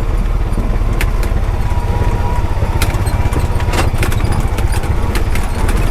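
Honda Pioneer 520 side-by-side's single-cylinder engine running steadily while driving, with a few sharp knocks about a second in, near three seconds and near four.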